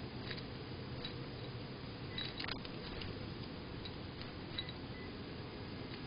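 Faint, irregular ticks of a sparrow's beak pecking seed in a plastic feeder dish, with a small cluster of them a little past two seconds in, over a steady low hum.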